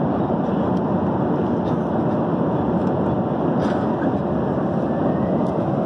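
Steady roar of an airliner cabin in flight: jet engine and airflow noise heard from a passenger seat, with no change in level.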